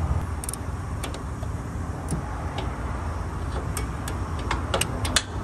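Ratchet clicking in short, irregular strokes while the 13 mm battery-cable nut on a starter motor's stud is tightened.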